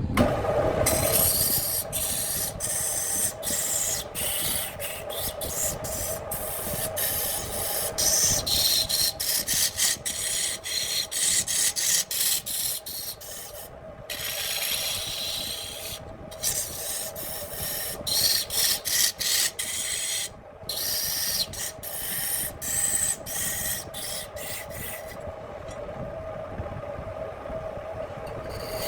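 Handmade wood lathe running with a steady hum while a tool rasps against the spinning wood, the contact broken off again and again by short pauses.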